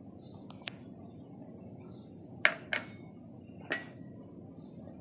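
A cricket chirping steadily in a fast, high, even trill, with a few light clinks of utensils against a steel mixing bowl, the loudest about halfway through.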